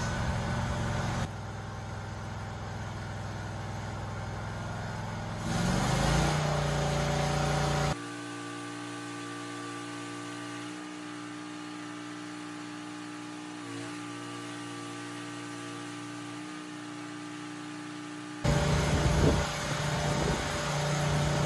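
Stick welding with a 6010 rod on a steel pin boss: the arc crackles over the steady drone of a running engine. The sound jumps abruptly between louder, noisier stretches and quieter, steadier ones several times.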